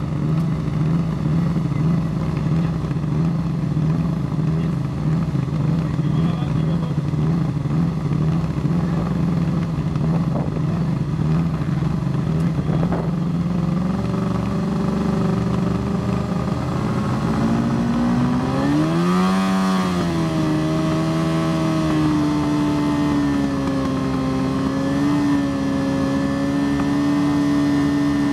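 Formula Student race car engine running during a static noise test. It idles steadily, rises gradually in pitch, is blipped up and back down once about two-thirds in, then is held at a steady higher rpm.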